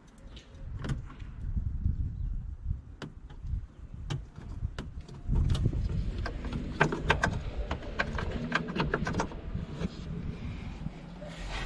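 A run of sharp clicks and small rattles from parts being handled while a headlight bulb is changed, sparse at first and coming thick and fast in the middle, over a low rumble.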